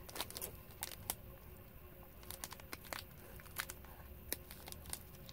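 Thin plastic wrapper of an Umaibo corn puff stick crinkling as it is handled and cut open with scissors, in faint scattered crackles and clicks.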